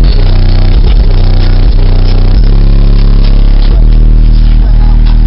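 Bass-heavy music played very loud through a wall of eight 12-inch Pioneer Premier TS-W3002SPL subwoofers in a Mazda 323 hatchback, the low notes held and changing every half second to a second.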